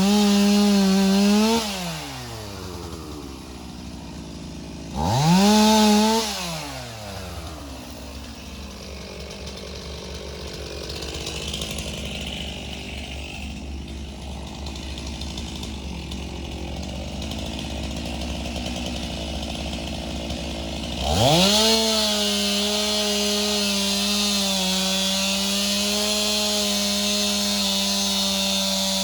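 Stihl MS362 two-stroke chainsaw at full throttle, let off about a second and a half in so its pitch falls away to idle. It is blipped briefly about 5 s in and idles quietly for a long stretch. It then revs up sharply about 21 s in and runs steadily at high speed, the pitch sagging slightly now and then.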